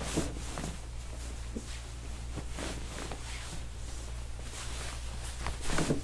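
Scattered soft rustles and shuffles of people moving about and handling a patient on a padded table, over a steady low hum, with the most distinct handling noise near the end.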